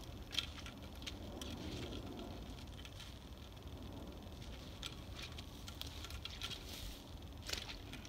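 Rustling and scattered crackles of plastic: rubber boots stepping on silver plastic mulch film while insect netting is pulled out over the hoops. The sharpest crackle comes about half a second in.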